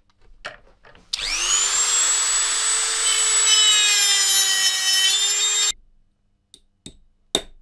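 Handheld rotary tool with an abrasive cut-off disc spinning up with a quick rising whine and cutting into an EEPROM chip's package held in a vise, running about four and a half seconds before it stops abruptly. After it, a few light knocks and one sharper hammer tap near the end.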